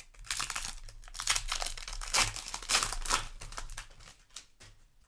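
Magic: The Gathering play booster's foil wrapper crinkling as it is handled, in a run of irregular rustles that thins out near the end.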